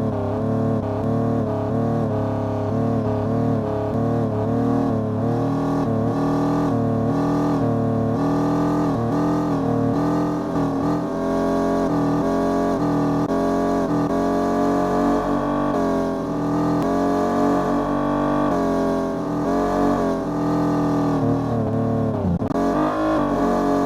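Music with a bass line and chords changing in steps, over the steady low running noise of a car on the road.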